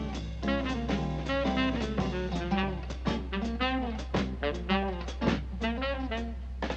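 Swing jazz played by a small group on drum kit and guitar, with the drums keeping a steady beat, over a constant low hum.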